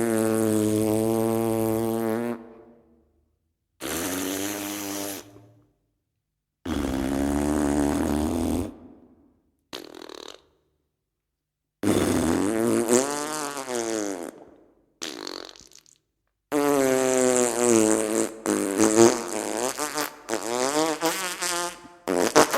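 Fart sound effects: a series of separate flatulent blasts with short silences between them, some wavering up and down in pitch. They end in a longer, sputtering run that breaks up many times.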